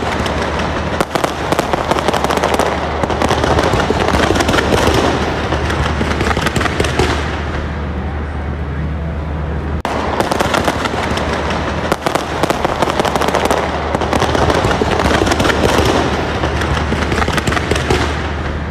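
Fireworks display: a dense, unbroken barrage of bangs and crackling from many shells bursting in quick succession, swelling louder and easing off twice.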